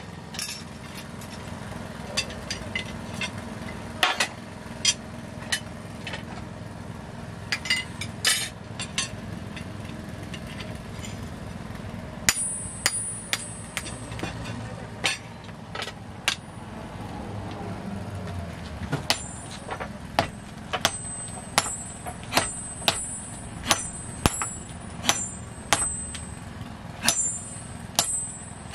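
Blacksmith's hand hammer striking glowing adze-axe steel on an anvil, each blow with a short high ring. In the first half there are only scattered clinks of metal and tools. From about halfway, steady blows at roughly one and a half a second take over, with a short pause, all over a low steady rumble.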